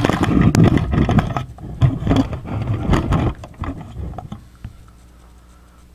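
Loud rumbling handling noise with scattered clicks and knocks as the camera is picked up and moved closer, settling into a faint steady hum after about four seconds.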